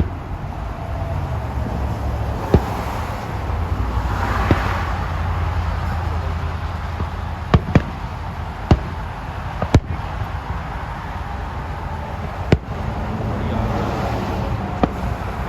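Fireworks going off: about eight sharp bangs spaced irregularly, two of them in a quick pair, with a crackling burst about four seconds in, over a steady low rumble.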